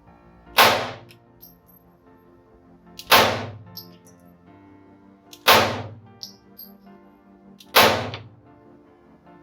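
Four single shots from an FN Model 1922 pistol in .32 ACP, each a sharp crack with a short fading tail, fired slowly about two and a half seconds apart, over faint steady background music.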